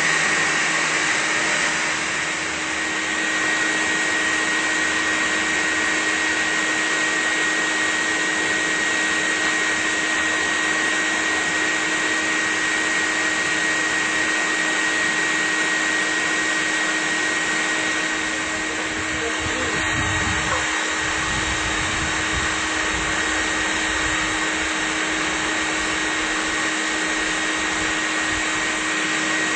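Bee vacuum running steadily, a motor whine over a low hum, as its hose sucks bees off the comb into the collection bucket. A brief low rumble comes about twenty seconds in.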